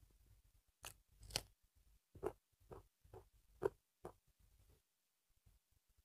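Faint, close-miked eating sounds: chewing with short wet mouth clicks, a run of them about two a second, while rice and dal are eaten by hand.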